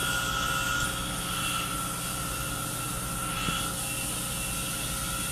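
Steady drone of a fishing boat's engine and deck machinery, with several steady whining tones over a low rumble.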